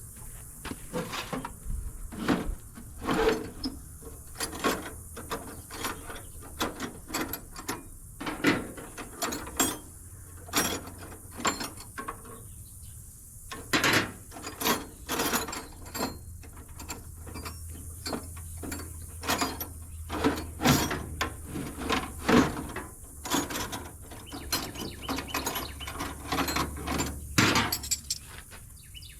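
Hand tools working on metal: irregular clicks, ratcheting and clanks, spaced a fraction of a second apart with short pauses, as parts are worked loose on a small Yanmar 1500 tractor.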